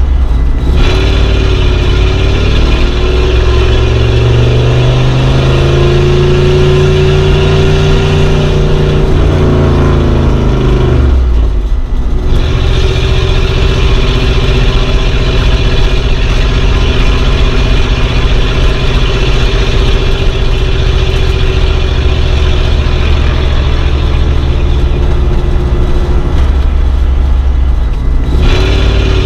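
Old car driving, its engine note climbing as it speeds up, then falling away briefly about eleven seconds in before running steady again at an even pace.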